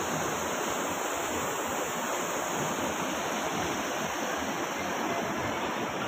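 Mountain river rushing over boulders below a waterfall: a steady roar of white water.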